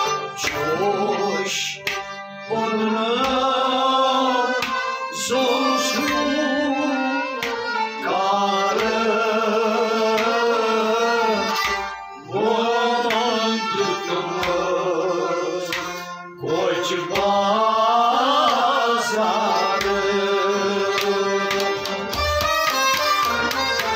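A man singing Kashmiri Sufi devotional poetry (kalam) in long, wavering phrases with short breaks. He is accompanied by a harmonium and a hand drum keeping the beat.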